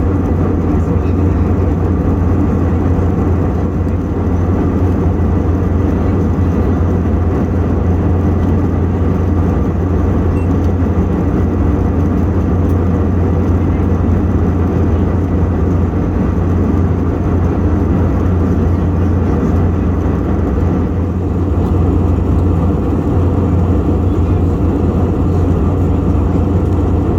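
Steady low rumble of an Airbus A321's engines and airflow heard inside the passenger cabin, unchanging throughout.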